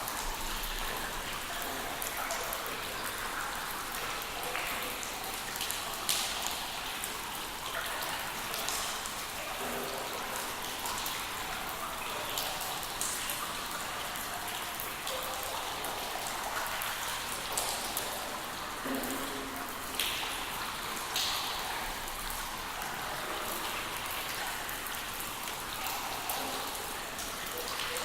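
Steady rain falling, an even hiss with many individual drops striking close by, a few louder ones standing out.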